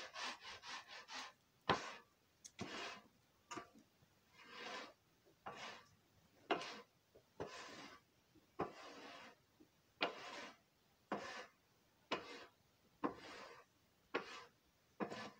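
A long-handled tool is pushed in repeated strokes across the donkey-stall floor, gathering manure, about one scraping stroke a second, with a few quicker short strokes at the start.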